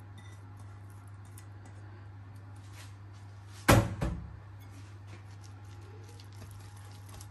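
Grated carrot scraped off a plate into a glass mixing bowl, with faint light scrapes and ticks, then a single dull knock a little under four seconds in as the plate is put down. A steady low hum runs underneath.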